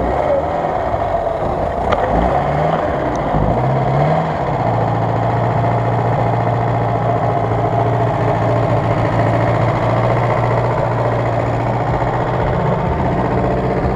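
Off-road SUV's engine under light load while crawling over logs: two short rising revs in the first few seconds, then held at a steady, even speed.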